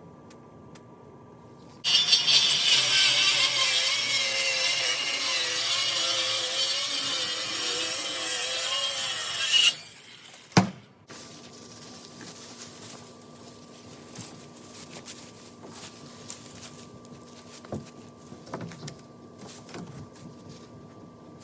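Electric power saw cutting through a wooden siding board for about eight seconds, starting about two seconds in, its motor tone wavering as it cuts, then stopping abruptly. A single sharp knock follows, then light clatter of boards being handled.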